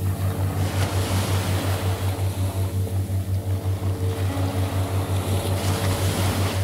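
Ambient meditation sound bed: a low tone pulsing evenly about four times a second under faint held synth tones, with a rushing, surf-like wash of noise that swells about half a second in and falls back near the end.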